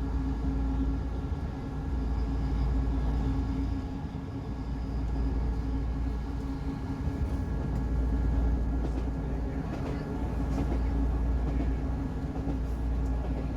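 Class 158 Sprinter diesel multiple unit running at speed, heard from on board: a steady low rumble of engine and wheels on rail with a constant drone, and a few faint clicks in the second half.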